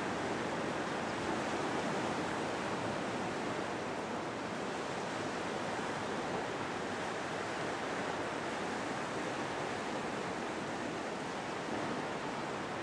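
Steady rushing wash of sea waves.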